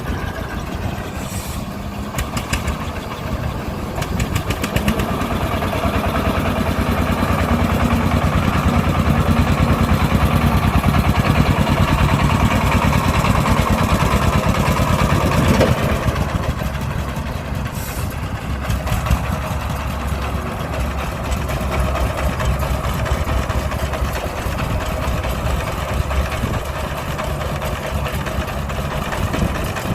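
Diesel engine of a tractor or excavator running under load. It grows louder from about five seconds in, then eases off suddenly about fifteen seconds in to a steadier, lower run.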